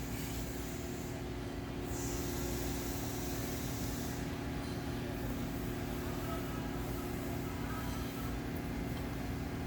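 Steady mechanical hum with a constant low drone and an even hiss, unchanging throughout.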